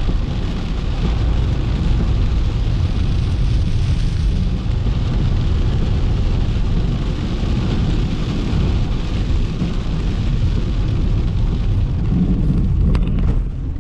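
Steady, loud wind rumble over a moving motorcycle's helmet or action-camera microphone, with engine and road noise underneath. A few short knocks near the end.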